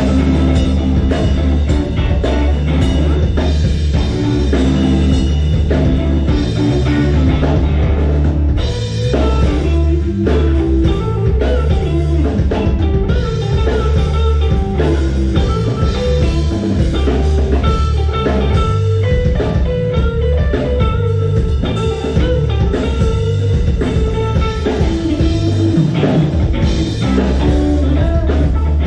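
A live rock band playing a song, with electric guitar, bass guitar and drum kit.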